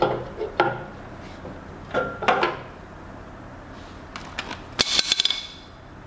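Adjustable wrenches clinking against a hydraulic hose fitting and the steel log-splitter frame while the line is loosened: a few separate clanks, then a quick metallic clatter with a short ring near the end.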